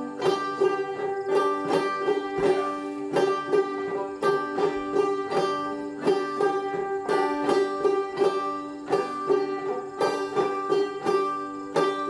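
Open-back banjo played clawhammer style: an old-time tune picked in a steady rhythm, about four strokes a second, over ringing strings.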